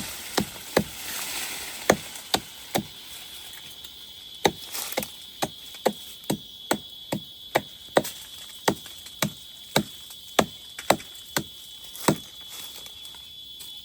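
Wood being chopped by hand with a bladed tool: sharp, regular strikes about two a second.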